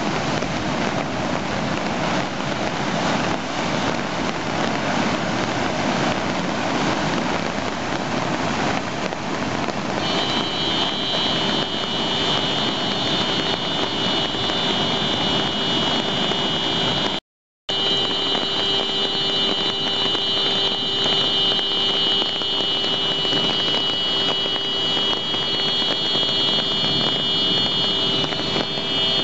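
Floodwater rushing and churning in a flash flood, a loud steady rush. About ten seconds in, a steady high-pitched electronic tone joins it and keeps going. The sound cuts out for a split second about two-thirds of the way through.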